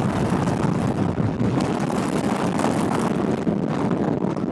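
Volvo XC70 driving over a rough gravel and dirt track: a steady rumble of engine and tyres, mixed with wind rushing on the microphone.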